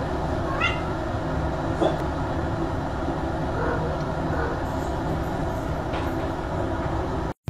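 Domestic cats giving several short meows and chirps a second or two apart, over a steady background noise.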